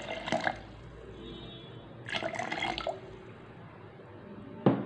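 Water poured into a glass blender jar, splashing over berries and sugar, with a louder burst of splashing about two seconds in. A single sharp knock near the end.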